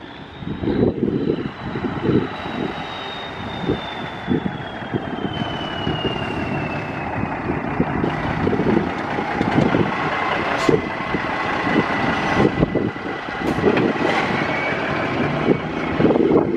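An ERF lorry tractor unit's diesel engine running as the truck comes round a roundabout and drives past at low speed. A high whine falls in pitch over the first several seconds, then holds steady.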